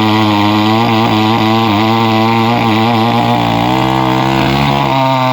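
Chainsaw engine running steadily and loudly while cutting a tree, its pitch wavering up and down, with a brief dip a little past the middle.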